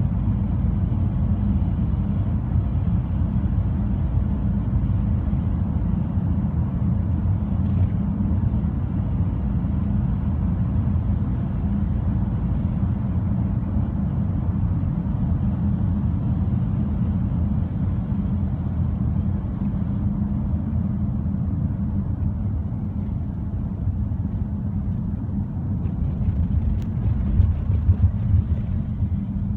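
Car interior while driving: a steady low road and engine rumble heard from inside the cabin, with a few louder bumps near the end.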